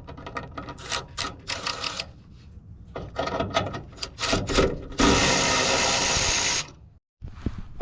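Socket ratchet clicking in short runs as exhaust fasteners are undone, then a loud steady noise for about a second and a half that cuts off abruptly near the end.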